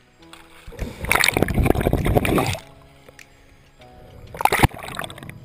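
Background music with steady held notes, under loud water sloshing and splashing at the surface against the camera: one long burst about a second in and a shorter one near the end.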